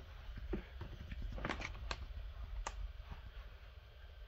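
Plastic latches on a molded SKB hardshell guitar case being snapped open: about four sharp clicks in the first three seconds.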